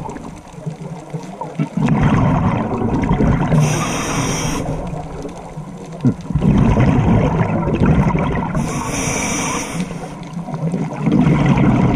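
Scuba diver breathing through a regulator underwater, heard from a camera in its housing. Each breath is a hiss, followed by a long bubbling burst of exhaled air, about three breaths in all, one every four seconds or so.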